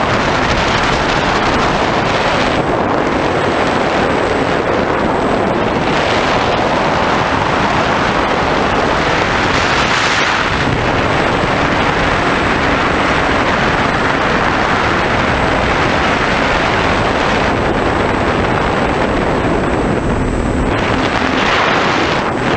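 Steady rushing wind noise on the onboard microphone of an FPV aircraft in flight, mixed with the drone of its motor and propeller, swelling and easing every few seconds.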